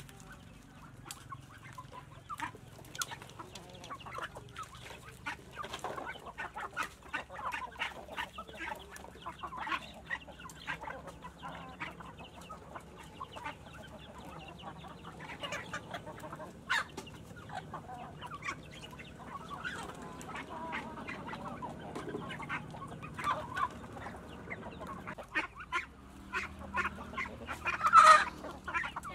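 Chickens clucking as they crowd around to feed on scattered corn, over many small sharp ticks of pecking and kernels dropping on the ground. A louder call comes near the end.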